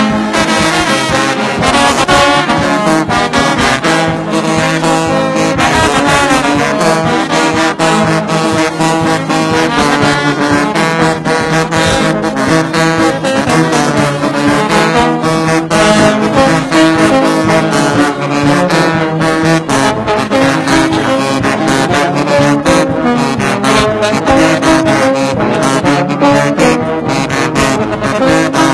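Brass band music: trombones and trumpets playing a tune together.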